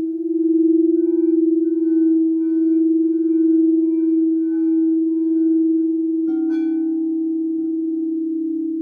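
Quartz crystal singing bowls ringing: one bowl holds a steady tone that swells and fades about once a second. About six seconds in, a light tap brings in a second, slightly lower tone that rings on with the first.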